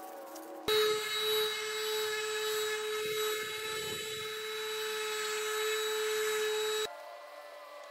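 A small high-speed power tool running with a steady high whine for about six seconds, starting and cutting off abruptly.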